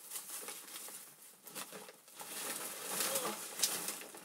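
Rustling and crinkling as books and small items are handled and sorted, in irregular bursts that grow louder about two seconds in.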